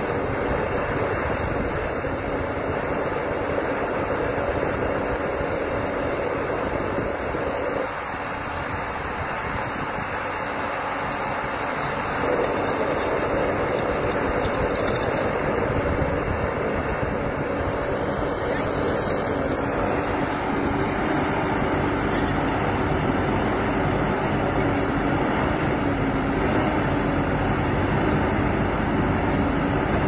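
Çukurova JMAC 888 backhoe loader's diesel engine running under hydraulic load as the backhoe arm digs soil. The engine eases off a quarter of the way in, then picks back up about four seconds later and stays steady.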